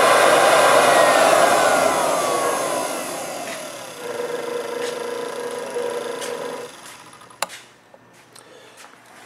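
Silverson L4RT-A laboratory homogenizer mixer running in water, its motor whine falling steadily as the speed drops, holding at a lower, quieter pitch for a couple of seconds, then stopping. A sharp click follows about a second later.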